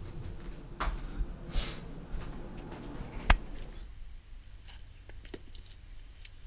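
Footsteps and handling noise with scattered clicks, and one sharp click about three seconds in. After that it goes quieter, with faint rustles and taps as football cleats are handled and pulled on.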